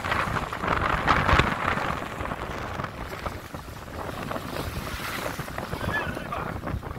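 Strong wind buffeting the microphone over choppy lake waves breaking and washing against the shore, gustier in the first couple of seconds.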